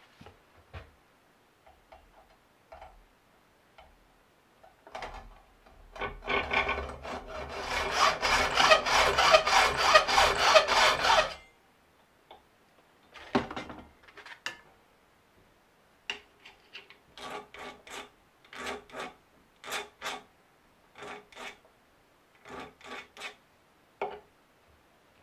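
Hand hacksaw cutting a metal screw clamped in a bench vise: a loud, fast run of strokes for about five seconds. After a pause, a hand file rasps across the screw in a steady series of single strokes, roughly two a second.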